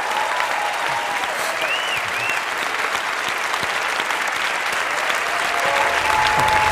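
Large audience applauding steadily at the end of a talk. Low music begins to come in underneath near the end.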